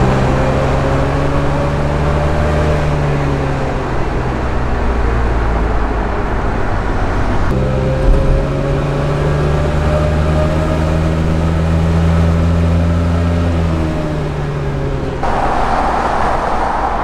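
Auto Union 1000 SP's three-cylinder two-stroke engine running on the move, heard from inside the car, its pitch rising slowly and then falling, twice. About fifteen seconds in the engine note drops away, leaving rushing wind and road noise.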